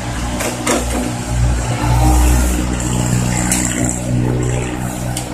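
Komatsu PC70 excavator's diesel engine running under hydraulic load as the machine swings and lowers its bucket, getting louder about two seconds in, with a few sharp knocks.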